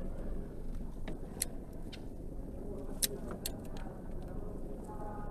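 Small blade cutting and trimming a bar of soap, giving a few short sharp clicks as it bites, over a steady low background rumble.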